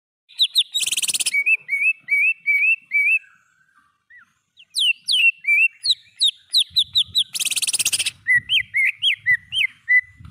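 Green leafbird (cucak ijo) singing a fast run of whistled, upslurred notes. Two harsh, buzzy rattles break in, one about a second in and one near eight seconds, with a brief lull around four seconds before the song picks up again.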